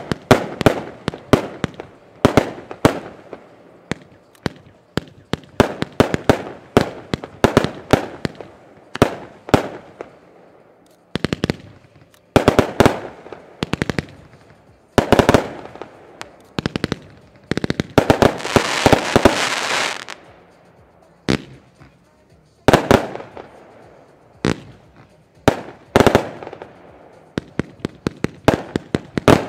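Lesli 'Zombi Zone', a small Class I fan-shaped compound firework cake, firing shot after shot in quick volleys of sharp pops, with brief pauses between volleys. About two-thirds of the way in, a dense crackling hiss lasts about two seconds.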